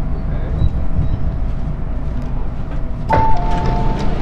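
Steady low running rumble of an MTR M-train heard from inside the car. About three seconds in, a loud electronic two-note chime sounds, a higher note then a lower one, and starts to repeat.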